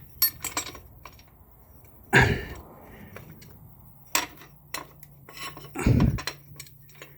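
Metal clinks and clicks of a starter bracket and its bolt being worked into place by hand under a car, with two heavier knocks about two seconds in and near six seconds.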